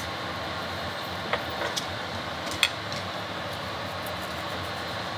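Steady background hum and hiss, like a fan or air conditioner running, with a few light ticks, one about a second and a half in and another about halfway through.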